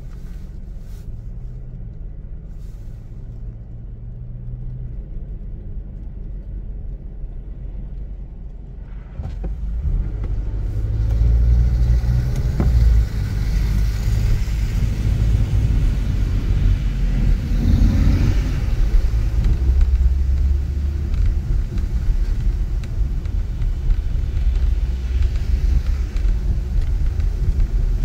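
Car driving on a snowy street: a steady low rumble of engine and road noise that gets louder about nine seconds in, joined by a hiss of tyre noise.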